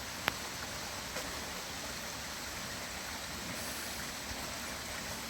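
Running water, a steady even rush, with one sharp click just after the start.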